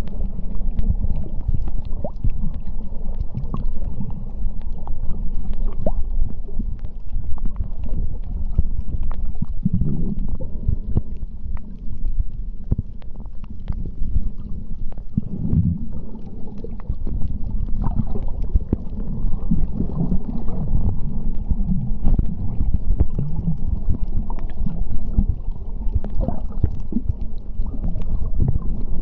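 Underwater sound on a coral-reef dive: a steady low rumble with many scattered sharp clicks. It swells twice, about ten and fifteen seconds in.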